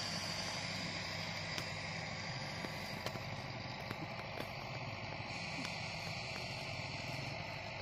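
A steady low engine hum under a constant hiss, with a few faint ticks and no clear change.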